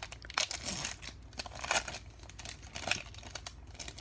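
Foil wrapper of a Panini Prizm basketball card pack crinkling and tearing as it is pulled open by hand, in irregular crackles with louder rustles about two and three seconds in.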